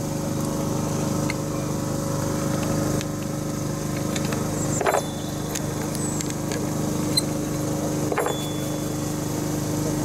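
Blower motor salvaged from a washer-dryer running steadily, a constant electric hum and whir feeding air to a homemade furnace.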